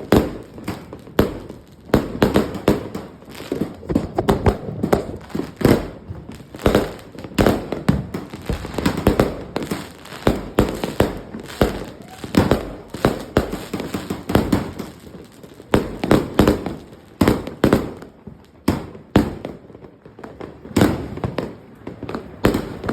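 Fireworks going off in rapid succession: a dense, unbroken run of sharp bangs, several a second, with crackling between them.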